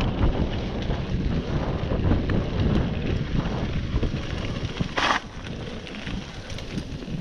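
Wind buffeting the microphone over the rumble of a mountain bike rolling along a rough dirt trail. A short rasp comes about five seconds in, after which the rumble is a little quieter.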